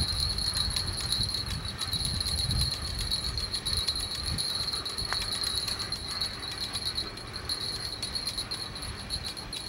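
Crickets trilling in a steady high-pitched chorus, a fast shimmering pulse that never lets up. A low rumble of wind sits underneath.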